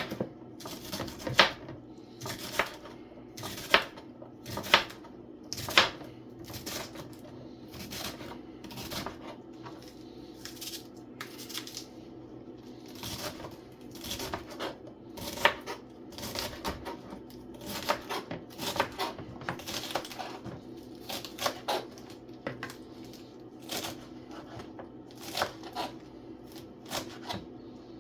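Knife chopping vegetables on a cutting board: short, sharp knocks at an uneven pace, roughly one or two a second, over a steady low hum.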